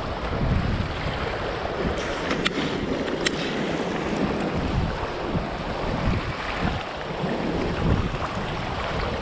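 Wind buffeting the microphone over the rush of choppy river water, with two small sharp clicks about two and a half and three seconds in.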